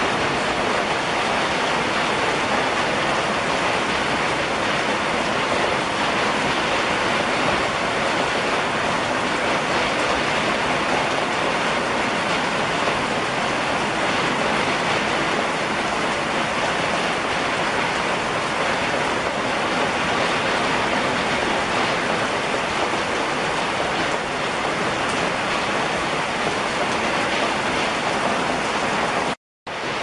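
Heavy rain falling steadily through pine trees, an even, dense hiss. It drops out to silence for a moment near the end.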